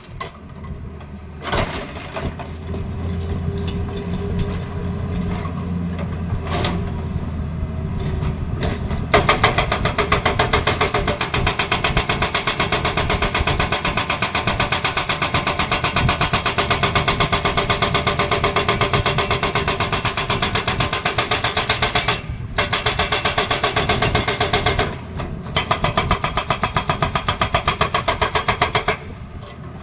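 Tata Hitachi excavator's hydraulic breaker hammering with rapid, even blows over the running engine. The machine's engine drones alone at first; the hammering starts about a third of the way in and breaks off briefly twice near the end.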